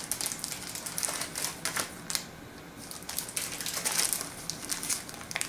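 Packaging being handled: irregular crinkling and clicking as the card packs and their wrapping are moved about, with a quieter spell around the middle.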